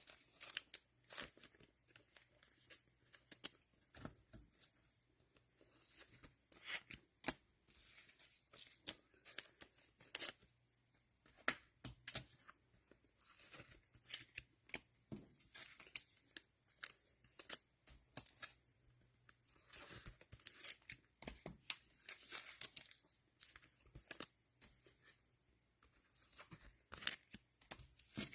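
Cellophane wrappers of Panini Mosaic football card packs being torn open and crinkled: a quiet run of irregular crackles and snaps.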